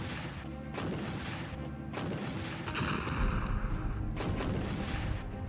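Heavy artillery gunfire: several cannon shots spread over a few seconds, each a sharp crack followed by a low rumble.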